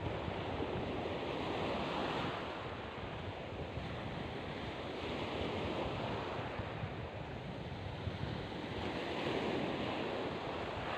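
Sea surf washing on a beach, swelling louder and easing off a few times.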